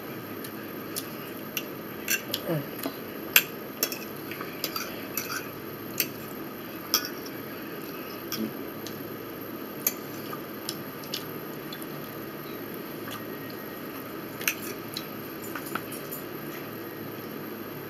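Metal forks tapping and scraping against a plate and a plastic food tray, in irregular sharp clicks over a steady background hiss.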